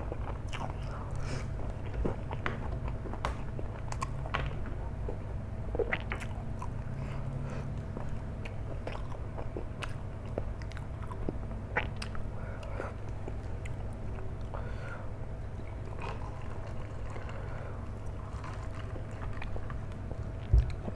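Close-up chewing of flat rice noodles, with many small wet mouth clicks and smacks scattered throughout, over a steady low hum.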